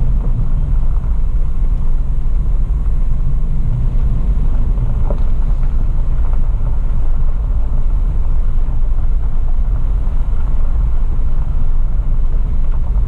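Toyota FJ Cruiser's V6 engine and tyres on a dirt track, heard from inside the cabin while the truck drives slowly: a steady, deep drive noise.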